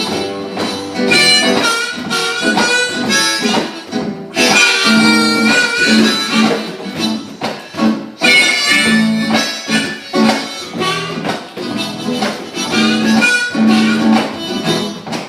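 Live blues-flavoured band music: an instrumental intro with guitar under a reedy, wind-instrument-like lead melody and a steady rhythmic pulse.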